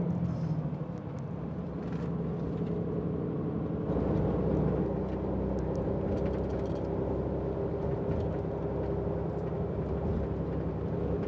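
Tour coach heard from inside the passenger cabin while driving at speed on the motorway: a steady drone of engine and road noise, a little louder from about four seconds in.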